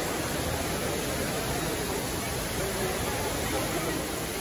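Water cascading from a tall decorative fountain, a steady even rushing splash.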